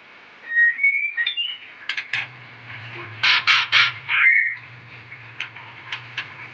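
Young white-rumped shama, about 17 days old, calling: a few short rising whistles, then a run of loud harsh notes ending in a brief held whistle, and a few short ticks after. It is a chick's early practice at its fighting song. A low steady hum runs underneath from about two seconds in.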